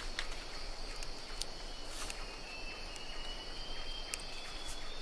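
Rainforest insect chorus: a steady high buzzing drone, with a thinner high tone joining about a second and a half in, and a few sharp clicks scattered through it.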